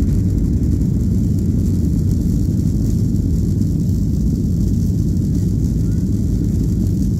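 Steady low rumble heard inside the cabin of a Boeing 737-800 as it rolls onto the runway, from its CFM56-7B engines and the airframe moving over the pavement.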